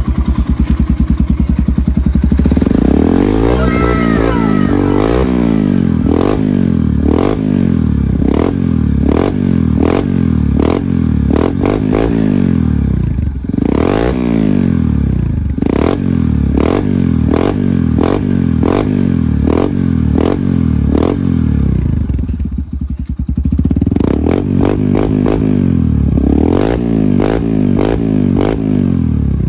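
Yamaha XTZ125's single-cylinder four-stroke engine idling and blipped over and over, about once a second, each rev rising and dropping back, through a stock muffler that has been gutted to enlarge its outlet. The revving pauses briefly for idle about two-thirds of the way through, then resumes.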